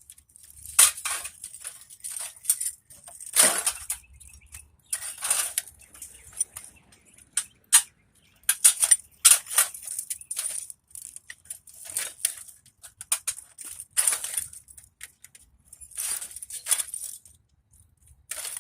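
Irregular clicks, scrapes and rattles of metal and plastic parts being worked by hand as a copper deflection yoke is pried and pulled free for scrap.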